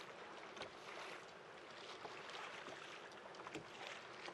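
Faint lapping and small splashes of seawater against a kayak hull, with scattered light drips and ticks.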